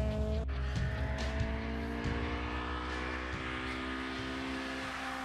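Car engine running on a race track, its note climbing slowly and steadily, with a low rumble over the microphone in the first few seconds.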